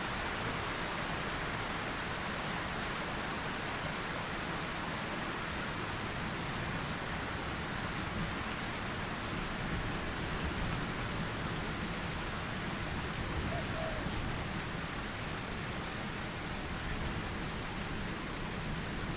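Steady light rain falling on surfaces, an even hiss with scattered faint drop ticks.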